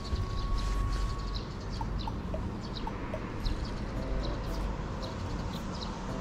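Birds chirping, short high calls repeating about twice a second over a steady low rumble.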